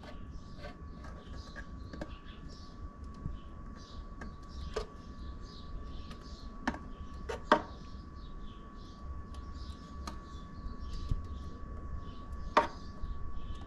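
Metal spoon clinking and scraping against an aluminium pot and a glass jar as thick pomegranate juice is ladled into the jar, in sharp irregular clicks, the loudest about halfway through and near the end. Birds chirp faintly throughout over a steady thin hum.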